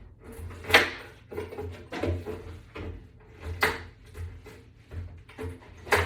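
Wall-mount sections being set and shifted onto a board fixed to the wall: handling scrapes with four or five sharp knocks as the pieces go into place.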